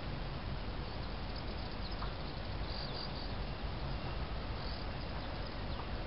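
Outdoor ambience over dry grassland and scrub: a steady hiss with a low rumble, broken by a few short high chirps about one and a half, three and five seconds in.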